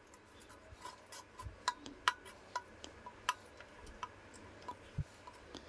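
Faint, irregular light clicks and ticks as black insulating tape is wrapped around the twisted wire joints of a table fan's capacitor and coil leads.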